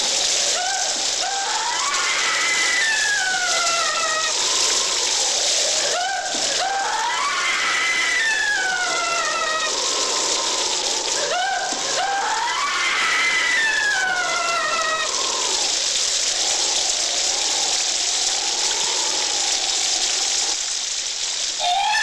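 A steady rain-like hiss with high tones gliding up and down over it in repeated arcs.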